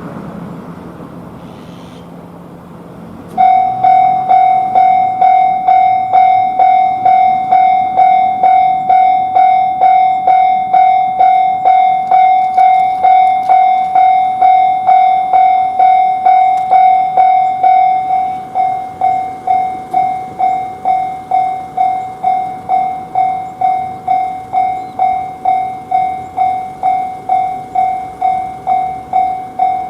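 Japanese railway level-crossing warning bell starting up about three seconds in and ringing its repeated 'kan-kan' tone at about two strikes a second. It drops to a lower volume about eighteen seconds in and rings on.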